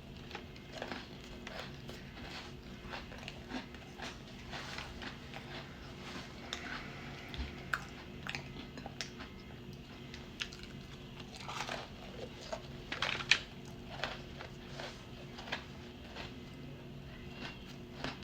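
Close-miked chewing and crunching of cookies: irregular crisp crunches and mouth sounds, loudest in a burst about two-thirds of the way through.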